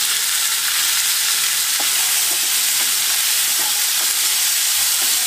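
Freshly chopped tomatoes sizzling hard in hot oil in a kadhai, giving off steam as their juice hits the oil. A steady loud hiss, with a few faint taps of a wooden spatula stirring them.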